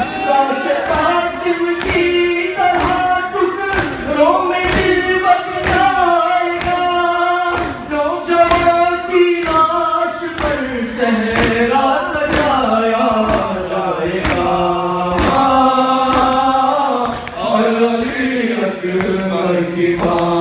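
Male nawha reciter chanting a lament in Urdu through a microphone, with mourners' voices joining in chorus. Under the chant runs a steady rhythm of thuds from the mourners beating their chests in matam.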